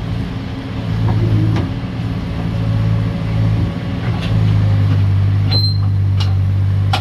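Excavator diesel engine running and working under load, its note swelling about a second in and again just past the middle, then holding steady. Several sharp knocks come through, mostly in the second half.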